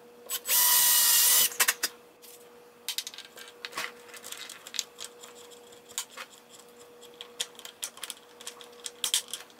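Cordless drill with a twist bit running for about a second as it bores a hole through the speaker cabinet, a motor whine over cutting noise. Then scattered light clicks and rubbing as fingers handle the case at the fresh hole.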